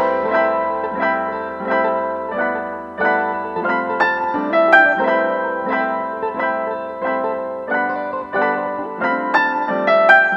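Background music: a gentle piano melody with notes struck about twice a second.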